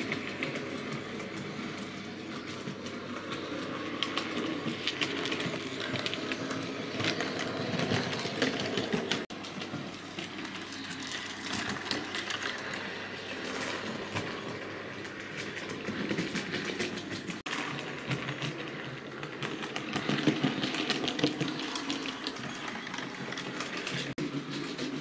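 Hornby OO gauge model of a Coronation-class steam locomotive running on a model railway layout. A steady electric motor hum with quick, irregular clicking of wheels over rail joints and points, swelling and easing as it goes, with a few sudden brief breaks.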